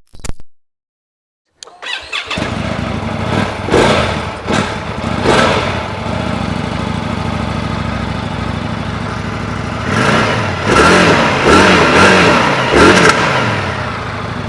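New Indian Scout motorcycle's V-twin engine started up about two seconds in, idling with a couple of short throttle blips, then revved several times near the end.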